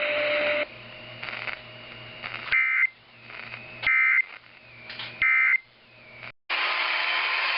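Three short bursts of EAS digital data tones over weather-radio hiss, evenly spaced about 1.3 s apart: the end-of-message codes that close a NOAA Weather Radio warning. The audio drops out briefly near the end, and a different broadcast cuts in.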